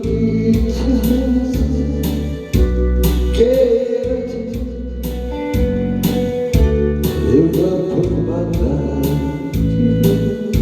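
Band music with a regular drum beat, a bass line that changes note every second or two, and a wavering lead melody line over them.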